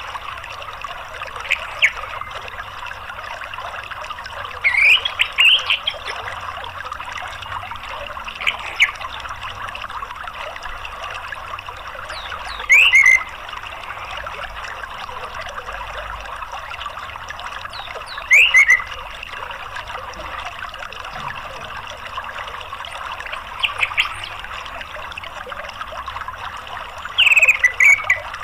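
Steady trickle of running stream water, with short, sharp bird chirps breaking in every few seconds, about seven of them, some sweeping down in pitch.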